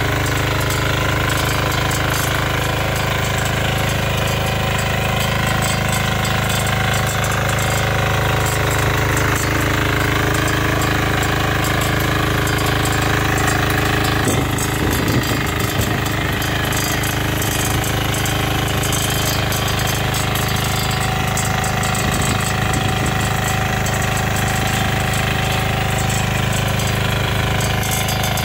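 A 10 HP walk-behind power weeder's engine running steadily under load while its centre rotary tines till the soil, a continuous rapid chugging. The sound shifts a little about halfway through.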